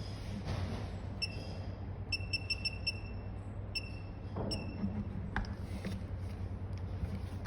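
Short electronic beeps: a single one, then five in quick succession, then two more spaced apart, over a steady low hum.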